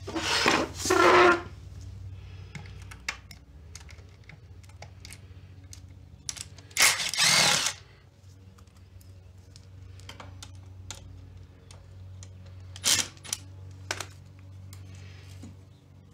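Cordless drill/driver run in short bursts, backing out the screws of an engine cover: two bursts in the first second and a half, another around seven seconds in, and brief ones near thirteen and fourteen seconds. Small clicks and clinks of screws and parts come between the bursts, over a steady low hum.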